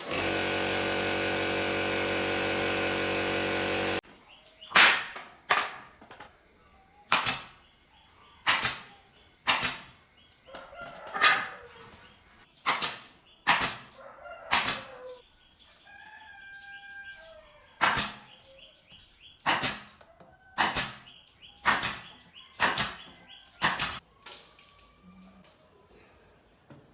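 A steady machine sound, like a power tool, runs for about four seconds and cuts off suddenly. It is followed by a string of about fifteen sharp knocks, roughly one a second, each ringing briefly.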